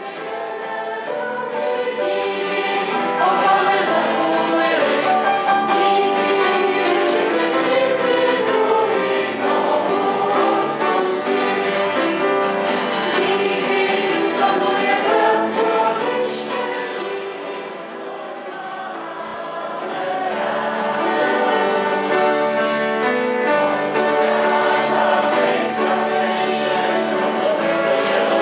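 A group of people singing a song together, with a brief lull about two-thirds of the way through.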